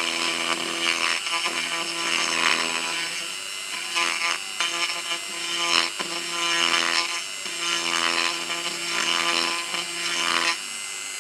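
Handheld rotary tool running at a steady pitch, its small burr grinding a hole into a wet 3D printed plastic skull model, the grinding swelling and easing as it is pressed in. The motor stops shortly before the end.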